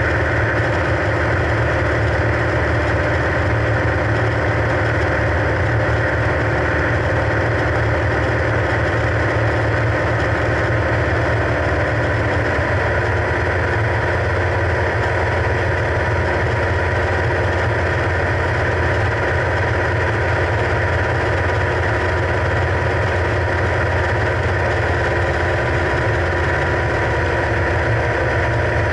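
Single-engine propeller airplane's engine and propeller running steadily in flight, heard from inside the cockpit. The tone of the drone shifts slightly about twelve seconds in.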